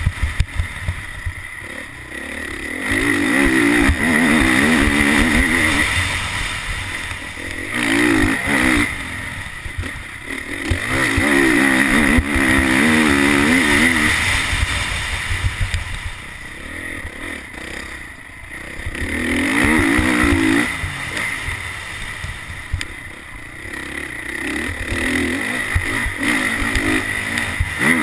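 Honda CRF450R's single-cylinder four-stroke engine under a rider on a motocross track, revving hard and backing off again and again as the throttle is opened and closed, about five times.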